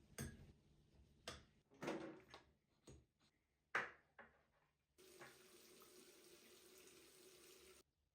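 A handful of sharp knocks and clatters of things being handled, then a tap running in an even stream for about three seconds, cut off abruptly.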